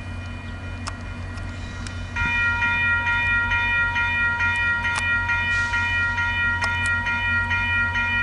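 Railway level-crossing warning bell that starts ringing abruptly about two seconds in, giving steady, even strokes at roughly two to three a second as the crossing activates for an approaching train. A steady low hum runs underneath.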